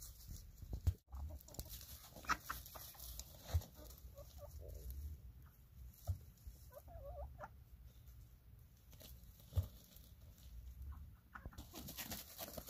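Chickens clucking in short, scattered calls, over a steady low rumble broken by a few dull thumps.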